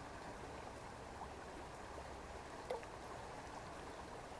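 Shallow stream running steadily, faint, with a couple of small clicks about a second in and near three seconds in.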